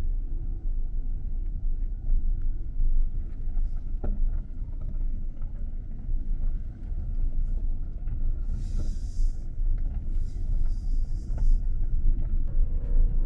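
Wood fire burning with a steady low rumble and a few faint crackles, with two short bursts of hiss about two-thirds of the way through.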